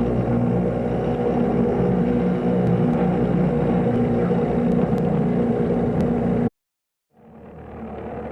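Ship's horn sounding one long, steady, low blast of several tones together, cut off abruptly about six and a half seconds in. After a short silence another horn blast swells in near the end.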